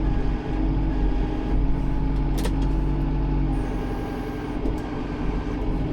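Tractor engine running steadily, with one sharp crack about two and a half seconds in.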